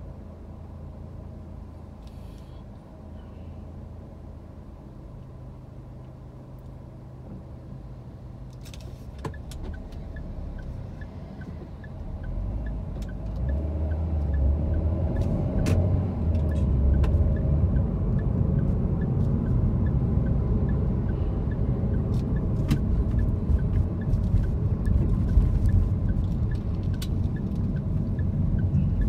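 Car cabin noise while driving: a steady low hum at first, then a louder rumble of engine and tyres that builds partway through as the car picks up speed. A faint, evenly spaced ticking and a few clicks sit above it.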